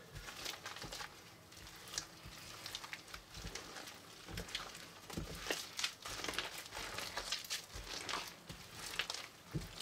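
Hands squeezing and kneading a large mixed mass of slime, putty and bead-filled floam, giving soft, irregular squishing with many small crackles and clicks.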